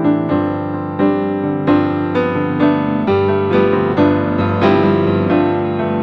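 Background piano music, calm, with notes and chords struck at an even, unhurried pace.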